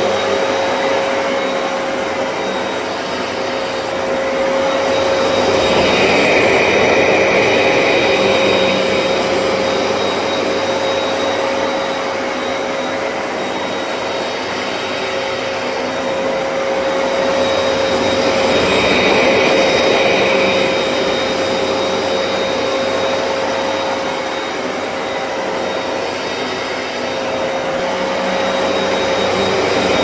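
Hoover PowerDash Pet carpet cleaner running its suction motor, a steady whining drone that swells and eases in a slow cycle, louder about every twelve seconds.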